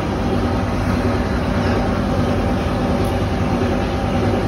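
Scrap copper wire granulator machine running steadily while it processes scrap cable and discharges separated PVC granules, a loud continuous mechanical noise with a low hum.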